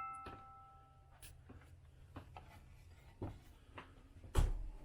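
Faint scattered clicks and knocks inside the trailer, with one loud low thump about four and a half seconds in. A ringing chime fades out in the first second.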